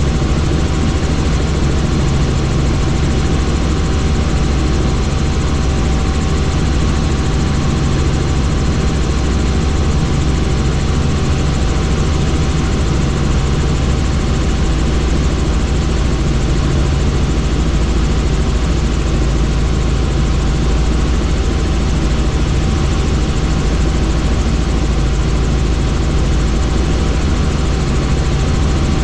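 Helicopter in flight, its engine and rotor running steadily with an unbroken deep drone and a thin steady whine above it.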